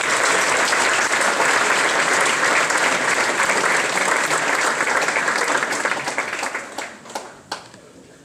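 Audience applauding steadily, then dying away to a few last scattered claps near the end.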